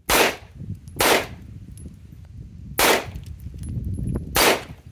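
Four shots from a Glock 17 9mm pistol, fired at an uneven pace: two about a second apart, then a pause, then two more.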